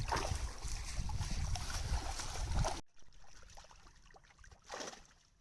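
Wind buffeting the microphone over sea and water noise on a boat. It cuts off abruptly about three seconds in, leaving faint water sounds with one brief swell.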